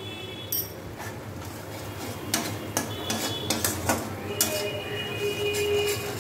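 Steel spatula scraping and knocking against a steel kadai while a spiced masala paste is stirred and fried down, with scattered sharp clinks. From about four seconds in the scraping turns into a steady metallic squeal.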